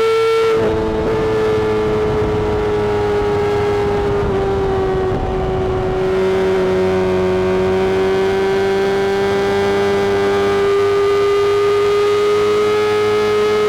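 Honda CBR600RR inline-four engine with a Mivv exhaust, held at high revs under way. The pitch sags slowly around the middle and then climbs back.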